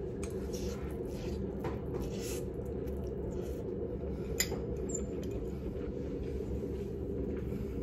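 Someone eating pancit canton noodles: a metal fork clinks and scrapes against a ceramic bowl in short, sharp taps, the sharpest about four and a half seconds in, between bites and chewing. A steady low hum runs underneath.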